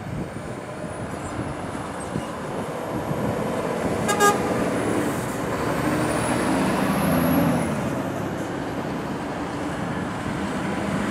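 A heavy lorry's diesel engine and tyres pass by, growing louder to a peak about seven seconds in and then easing. A short horn toot sounds about four seconds in.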